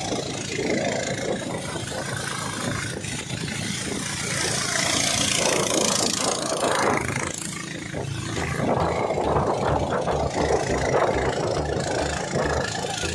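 An engine running steadily with a low, pulsing throb.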